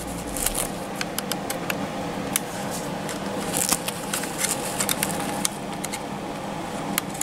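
Scattered sharp clicks and light scratching of a small flathead screwdriver prying at the snap-in pop tabs of an animatronic's plastic gear housing, with cloth rustling, over a steady low hum.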